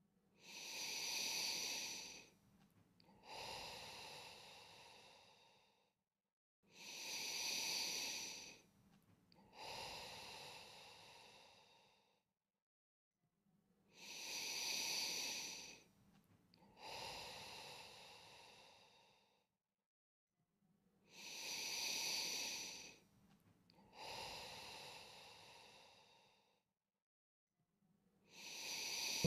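A person breathing slowly and deeply in a steady rhythm, about one breath cycle every seven seconds: a louder two-second breath, a short pause, then a longer breath that fades away. Four full cycles, with a fifth starting near the end.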